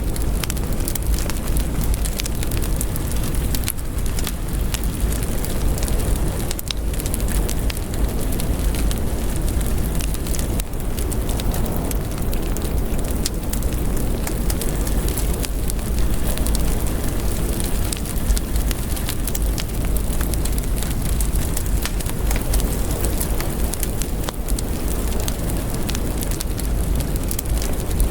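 Heavy rain falling on a window: a steady, dense hiss with many small drop ticks and a constant deep rumble underneath.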